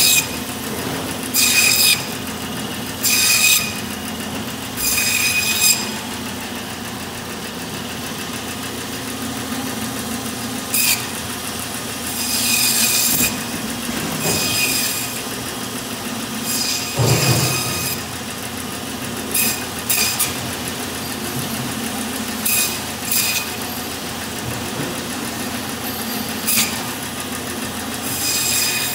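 Meat band saw running with a steady hum, its blade giving short, high-pitched rasping bursts again and again as it cuts through beef short rib bones.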